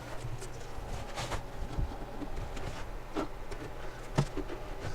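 A wooden drawer being set back onto full-extension soft-close drawer slides and slid along them, giving a few separate light knocks and clicks as the slide parts engage.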